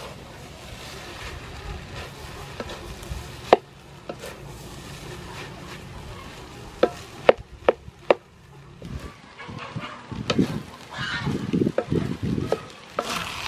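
Fried rice being stirred and tossed in a hot pan with a spatula, sizzling, with several sharp knocks in the middle and busier, louder stirring in the last few seconds.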